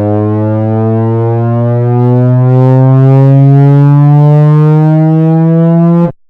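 Loud, buzzy electronic tone with a rich stack of overtones, gliding slowly upward in pitch and cutting off suddenly near the end.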